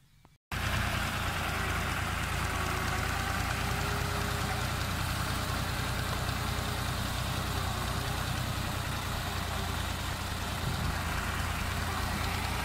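Farm tractor's diesel engine idling steadily, cutting in suddenly about half a second in.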